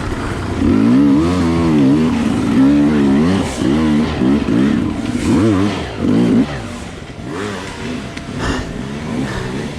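Dirt bike engine on an enduro trail, its pitch rising and falling quickly with repeated throttle blips. It runs loud for the first two-thirds, then drops to lower, quieter revs about six and a half seconds in.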